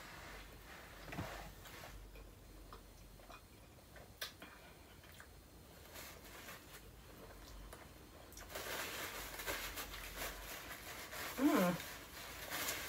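Paper sandwich wrapper being handled: faint scattered clicks at first, then steady crinkling and rustling from about two-thirds of the way in. Near the end a short whine falls in pitch.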